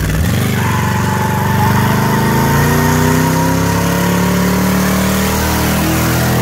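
2000 Lincoln Continental's 32-valve V8 with open exhaust revving hard under a neutral-drop burnout, its pitch climbing steadily as the car passes close by. A high tire squeal runs through the first half.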